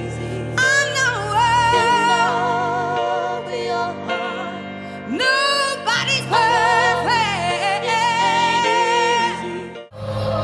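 A female singer belting high held notes with wide vibrato over a live band, in two long phrases; the audio cuts abruptly to a new recording just before the end.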